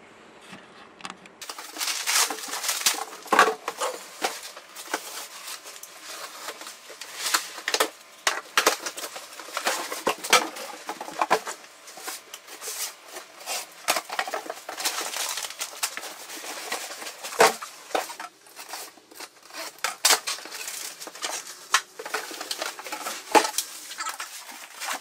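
Cardboard shipping boxes being opened and unpacked by hand: irregular rustling of cardboard and plastic packing, with scattered knocks and clicks as parts are handled.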